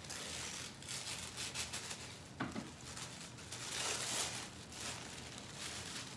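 Rustling and crinkling of wrapping as a pair of pillar candles is unwrapped by hand, in irregular bursts that are loudest about four seconds in.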